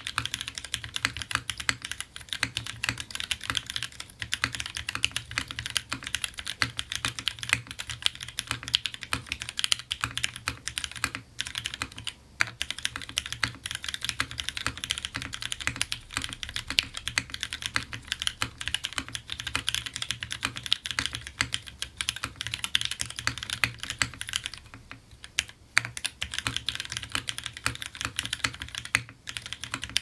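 Steady fast typing on a custom mechanical keyboard: a polycarbonate-cased 65% board with a polycarbonate plate, lubed and filmed Gateron Tangerine linear switches and GMK keycaps, giving a continuous patter of keystrokes. The typing breaks off briefly about twelve seconds in and again for a moment about twenty-five seconds in.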